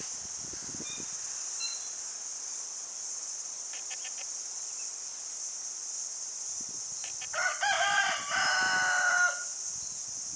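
Rooster crowing once, about seven seconds in: a crow of roughly two seconds, a few short notes and then a long held final note. A steady high-pitched hiss runs underneath.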